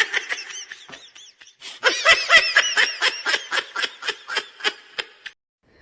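Canned laughter sound effect: a short burst of high-pitched giggling, then a longer run of rhythmic 'ha-ha' pulses, about five a second, that fades out about five seconds in.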